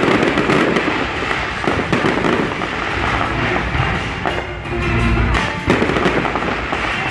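Fireworks display going off in a dense run of bangs and crackles, with music playing along underneath.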